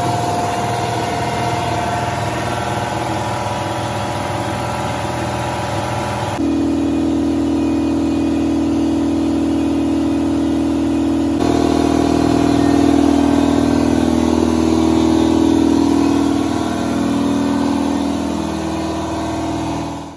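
Ingersoll Rand 60-gallon electric piston air compressor running steadily while it pumps up. About six seconds in the sound shifts abruptly to a deeper, hollower hum, and it shifts again about eleven seconds in. The owner puts the deeper sound down to the larger Solberg intake filter, as against the original small paper filter.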